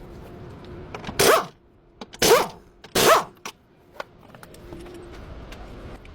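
A dog barks three times, each bark short and loud, about a second apart in the first half, over a steady background hum.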